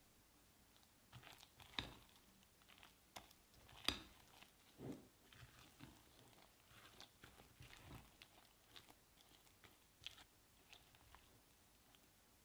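Silicone spatula folding chopped apples into thick cake batter in a glass bowl: faint, irregular wet squelches and scrapes, with a few sharper clicks, the loudest about two and four seconds in.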